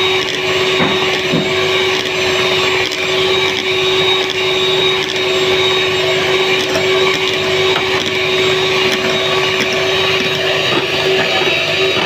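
Handheld electric mixer running steadily in a stainless steel bowl, whipping cream, its motor holding one constant whine.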